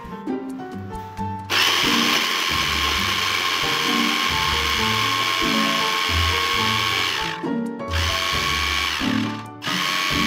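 Electric mini food chopper's motor running as it chops red onion and garlic: it runs for about six seconds, stops briefly, then runs again for under two seconds before stopping, over background music.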